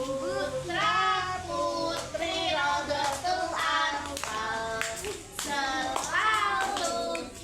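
Young children singing a song together, with high voices holding long notes.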